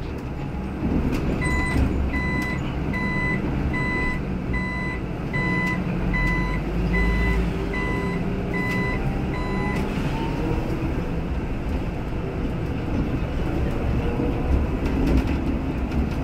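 A city bus's turn-signal warning beeper sounds about a dozen evenly spaced beeps, roughly three every two seconds, while the bus turns a corner, and stops about ten seconds in. The bus's engine and road noise rumble steadily underneath.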